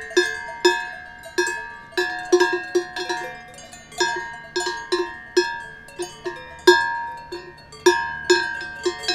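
Cowbells on grazing cows clanking irregularly, about two or three strikes a second, each strike ringing out briefly with several bell tones at once.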